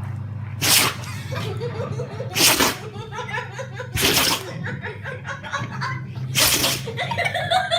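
A dog sneezing four times, roughly every two seconds, each a short sharp burst, with a person laughing between the sneezes and more so near the end.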